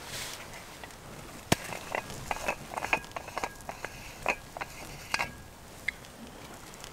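A quick, irregular run of small clicks and knocks from a small blue bottle being handled at close range, with one sharp click about a second and a half in. The clicking stops a little after five seconds.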